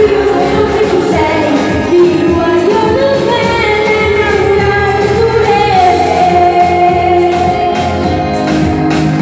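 A woman singing live into a handheld microphone over amplified backing music, her melody moving between notes and then holding one long note in the second half.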